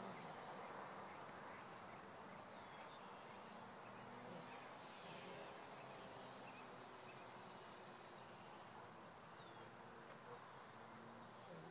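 Faint high-pitched whine of a small electric motor and propeller on a radio-controlled flying wing flying overhead, wavering gently in pitch.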